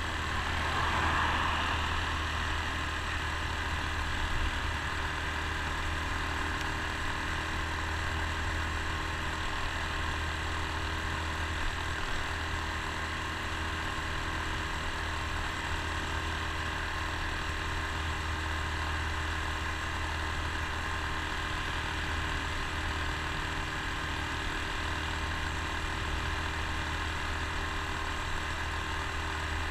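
Honda Super Cub C125's single-cylinder four-stroke engine running at a steady cruising speed, under a constant rush of wind and road noise, with a brief louder swell about a second in.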